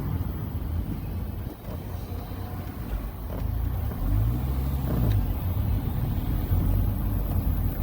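Low rumble of a vehicle's engine, rising and falling briefly in pitch about four seconds in.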